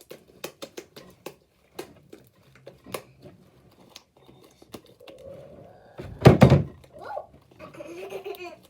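Scattered small clicks and taps, then one loud thump a little past six seconds in.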